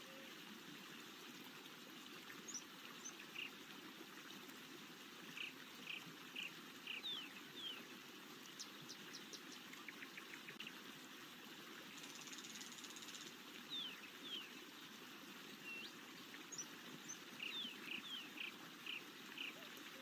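Faint forest ambience: several birds chirping in short high notes and quick downward-sliding calls over a steady soft rush of running water. There is a run of rapid ticking notes about nine seconds in and a brief high buzz about twelve seconds in.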